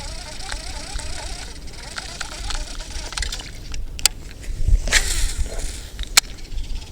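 Wind buffeting the microphone in a steady low rumble, with a few sharp clicks and a short hiss about five seconds in.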